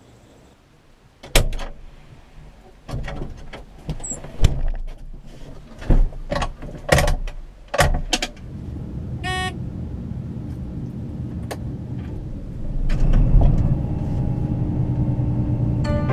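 Clunks and knocks like a vehicle door being handled and shut, then a short run of electronic beeps and a vehicle engine starting and running steadily, growing louder about 13 seconds in.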